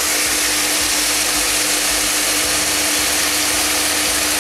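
GEPETTO seed treater running steadily as it treats a batch of soybeans: its spinning disc flings the seed about inside the drum, giving a steady hum under a loud, even rushing noise.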